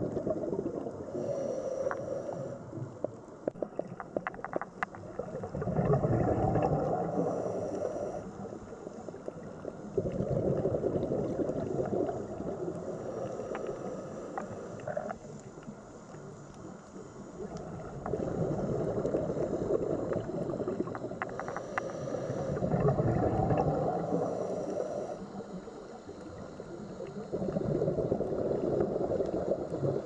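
Scuba diver's breathing heard underwater: exhaled bubbles from the regulator gurgling in surges every few seconds, with quieter stretches between and scattered faint clicks.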